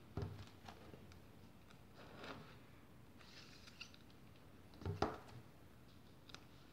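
Faint handling sounds of vinyl records being put into new plastic sleeves: thin plastic crinkling, with a couple of soft knocks, the louder one about five seconds in.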